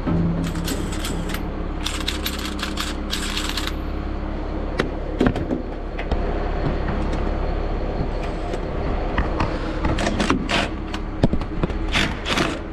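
A cordless power ratchet runs in short rattling bursts, two near the start and several near the end, as it backs out the radiator fan-mount bolts. A steady low mechanical hum runs underneath.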